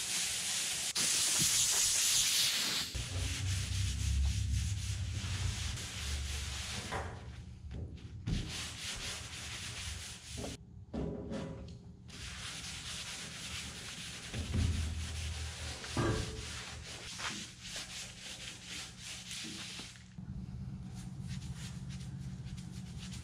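Abrasive Scotch-Brite pad scuffing the top of a steel fuel tank, a hissing, rasping rub that is loudest in the first few seconds, then lighter rubbing and wiping over the metal, broken by short cuts.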